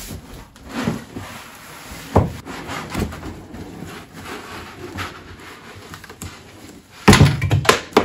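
Cardboard shipping box being lifted and slid off a boxed Park Tool TS-4.2 truing stand, with cardboard scraping, rustling and light knocks. About seven seconds in comes a quick burst of loud knocks and clatter, the loudest part, a mishap called a slight disaster.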